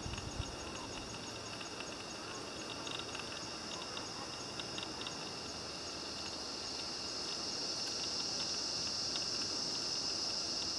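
Steady, high-pitched chorus of insects, a continuous shrill drone that grows louder in the second half, with faint short ticks scattered through it.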